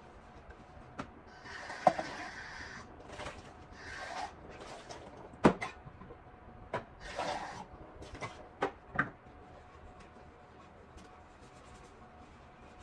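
Kitchen clatter while cleaning a sink: a handful of sharp knocks and clinks of dishes and utensils, the loudest about five seconds in, between several short hissing rushes, over a faint steady hum.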